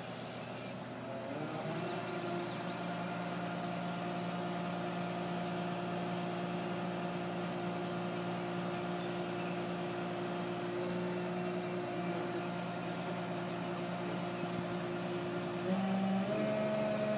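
Mobile crane's diesel engine running steadily under load, its note climbing about a second and a half in and stepping higher again near the end.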